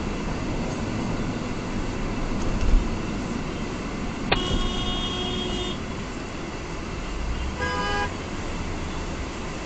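A car horn sounds for over a second, then a shorter honk of a different pitch follows about three seconds later, over steady road and engine noise heard from inside a moving car.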